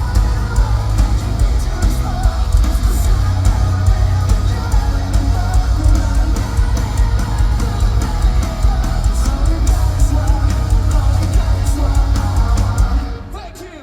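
Live metalcore band playing loud through the venue PA, with heavy bass, drums and guitars; the music drops away about a second before the end.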